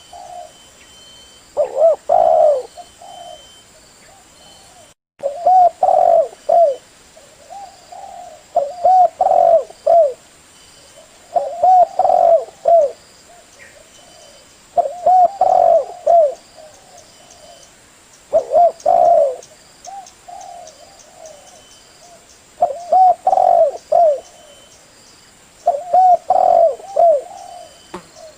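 Spotted dove (tekukur) cooing: a male's call, repeated phrases of a few rolling coos coming every three to four seconds, with softer coos between them.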